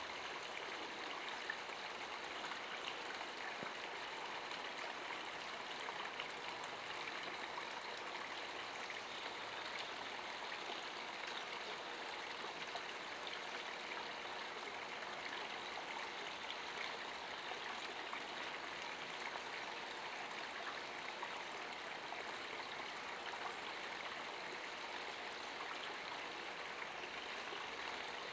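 Running water: a steady, even rushing noise.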